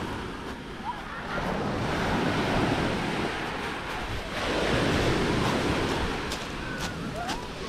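Small waves washing onto a shore of small pebbles and gravel, the surf swelling twice a few seconds apart. A few sharp clicks come near the end.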